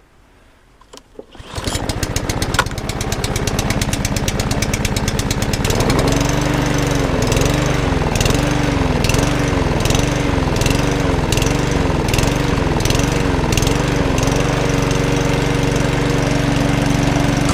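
Budget petrol lawnmower engine starting on choke and running; from about six seconds in its speed rises and falls rhythmically, a little faster than once a second, then it settles to a steady run near the end. Its throttle arm is broken, and the owner reckons it needs a throttle cable and probably carburettor work.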